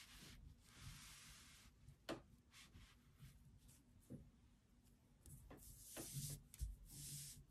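Faint rustle of a sheet of calligraphy paper being slid and repositioned on a felt mat, followed by a few soft taps and clicks.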